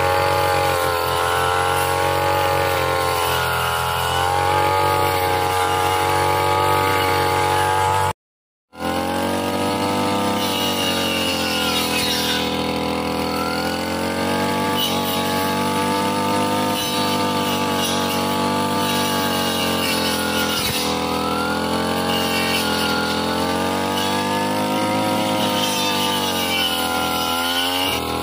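Backpack brush cutter engine running at high revs, its pitch rising and falling as the circular saw-toothed blade cuts through grass. The sound drops out completely for about half a second about a third of the way in.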